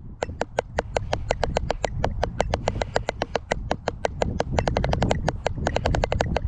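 Drumsticks playing a snare drumline exercise on a rubber practice pad: a fast, even stream of sharp taps, about eight a second, with some strokes accented. The taps start again just after a brief break.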